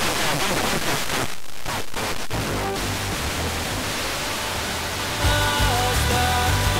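Wideband FM receiver hiss from an Airspy HF+ software-defined radio tuned to a weak station, the noise dipping briefly around two seconds in. About five seconds in, music from the weak, distant FM station comes through the static.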